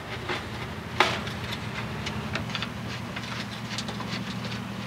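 Scattered clicks and light metallic taps from a screwdriver backing screws out of an old aluminum screen door frame, with one sharp click about a second in. A steady low hum runs underneath.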